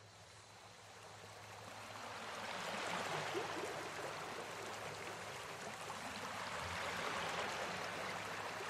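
Water of a shallow stream rushing over rocks in a steady rush. It swells from faint at the start to full by about three seconds in.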